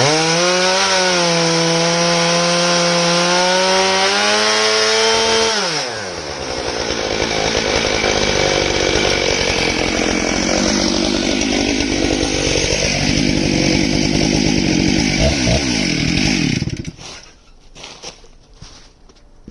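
Stihl MS661 two-stroke chainsaw on a chainsaw mill, milling elm. It runs at a high, steady pitch, then about six seconds in the pitch drops and the sound turns rougher and uneven with sawing noise. It stops abruptly near the end, leaving only faint clicks.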